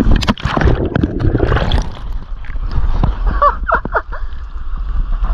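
Feet splashing and knocking about in shallow water over rocks, busiest in the first two seconds, the sound of a wader losing his footing. A steady low rumble runs underneath.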